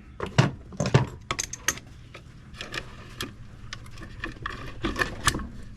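Steel shift fork and gears inside a Borg Warner T96 three-speed manual transmission clinking and clattering as they are moved by hand, a run of irregular light metallic clicks and knocks.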